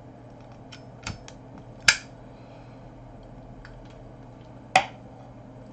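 A pocket lighter being worked to light up a smoke: a few small clicks and two sharp snaps, about two seconds in and near the end, over a steady low hum.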